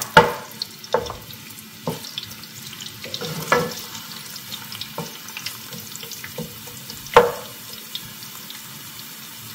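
Diced onions frying in palm oil and olive oil in a saucepan, a steady sizzle, with a spatula knocking against the pan several times as they are stirred, the loudest knock about two-thirds of the way through.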